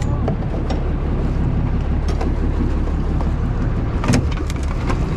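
Boat engine running with a steady low drone under a noisy wash of water, with a few short knocks on board, the loudest about four seconds in.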